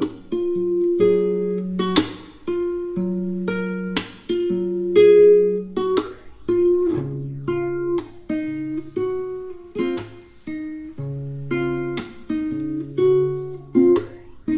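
Background music played on a plucked guitar, with a new note or chord about once a second and each one dying away.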